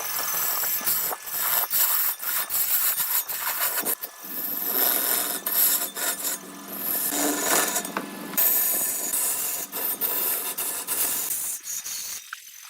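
Wood spinning on a lathe as a hand turning tool cuts into it: a rasping, scraping hiss that swells and eases with each pass, with scattered clicks, dropping off near the end.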